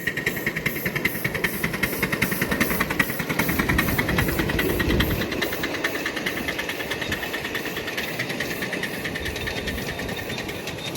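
A small machine or engine running steadily with a fast, even pulsing. It builds over the first few seconds and then slowly eases off.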